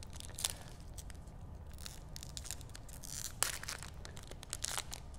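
Foil wrapper of a Panini Prizm trading-card pack being torn open by hand: scattered crinkles and tearing sounds, loudest about three and a half seconds in.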